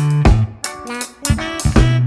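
Instrumental background music: a melody over held bass notes and regular drum hits.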